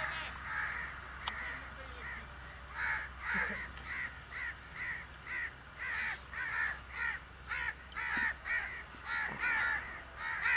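A bird calling over and over, about two short calls a second.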